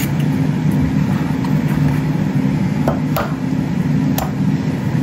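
Air fryer running with a steady low hum, with a few sharp clicks about three and four seconds in as eggs are cracked into ceramic ramekins.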